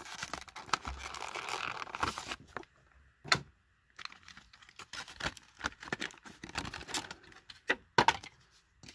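A clear plastic blister pack being torn and peeled off its cardboard backing card, with dense crinkling and tearing for the first couple of seconds. After a short pause come scattered crackles and sharp clicks as the plastic is handled and the die-cast toy car is worked free, two clicks standing out.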